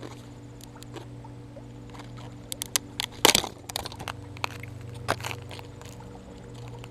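Lure packaging being handled, crinkling and rustling in short scattered crackles, the loudest about three and five seconds in, over a steady low hum.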